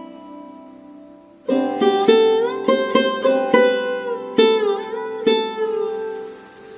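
Background music on a plucked string instrument: a quiet lull for the first second and a half, then a melody of plucked notes with sliding, bending pitches.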